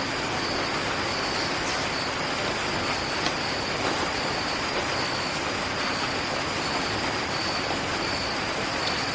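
Steady sizzle of squid cooking in a pan with its ground spice paste and a little water, with a faint thin high tone held over it.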